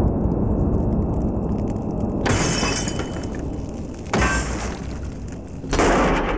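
Stone tablets being smashed: three crashes of breaking, each with a shattering edge, the first about two seconds in and the others roughly two seconds apart, over a steady low rumble.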